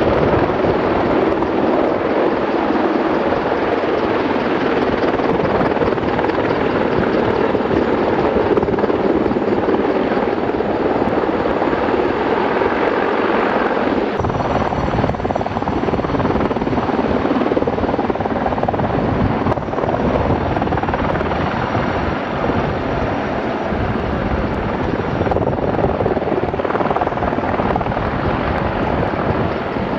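Helicopter rotor and engine noise, loud and steady, changing abruptly about 14 seconds in and again near 26 seconds as the footage cuts between shots.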